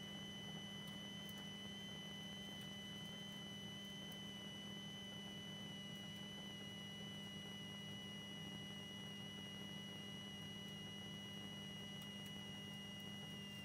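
Steady low electrical hum with a thin, high, steady whine over it, as picked up on a rally car's in-car intercom audio feed.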